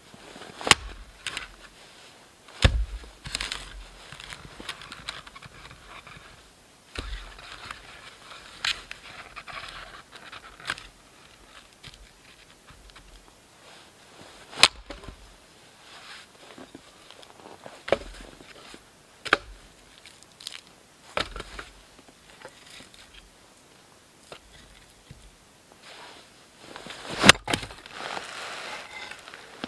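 Hatchet chopping firewood: about ten sharp knocks of the blade striking wood at uneven intervals, from about a second to several seconds apart, with scraping and rustling of wood between some of the blows.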